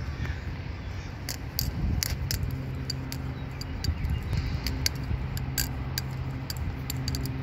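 HOM Design Basilisk balisong being flipped by hand: sharp metallic clicks and clacks of the handles and latch striking each other around the pivots, irregular at about three a second, starting about a second in. A low steady hum runs beneath.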